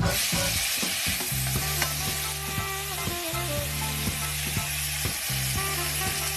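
Sliced onions sizzling in hot olive oil in a nonstick frying pan while being stirred, a steady frying hiss.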